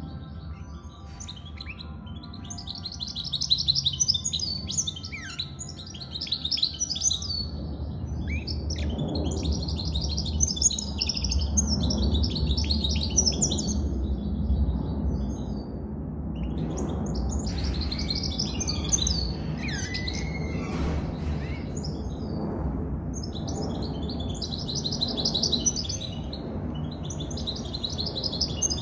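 Goldfinch mule, a goldfinch × canary hybrid fully out of the moult, singing: fast, high twittering song in phrases of a few seconds each, broken by short pauses.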